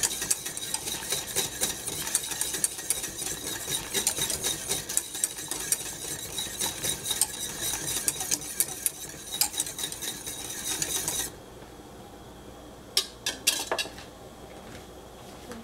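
A metal whisk beating a milk mixture in a stainless steel saucepan: a fast, steady run of clicking and scraping against the pan that stops abruptly about eleven seconds in, followed by a few sharp clicks shortly after.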